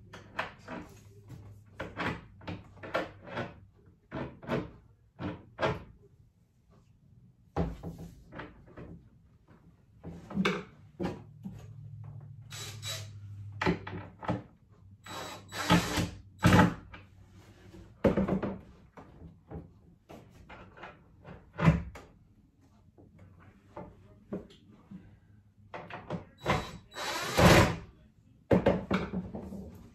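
Clicks and knocks of a cabinet door and its hinge hardware being fitted and adjusted on a wall cabinet, with a few longer, louder noisy stretches of about a second, the loudest near the middle and near the end.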